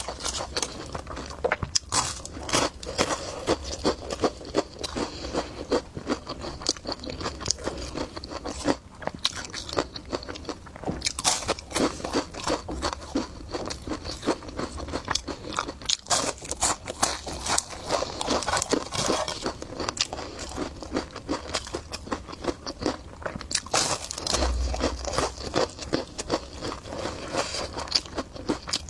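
Close-miked crunching and chewing of food by one eater: a dense, irregular run of crisp bites and chews.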